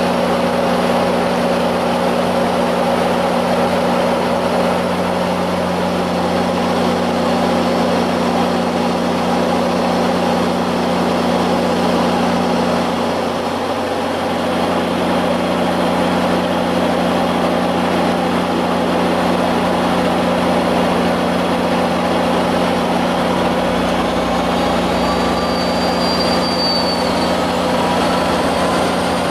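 Diesel locomotive of a Metrolink commuter train idling at a standstill, a steady low hum, with a brief break about halfway through and a faint rising whine near the end.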